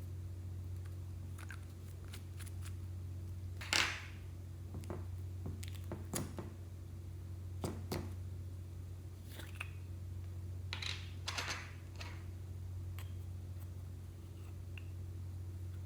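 Clear slime being kneaded and pulled by hand: scattered sticky clicks and squelches, the loudest about four seconds in, over a steady low hum.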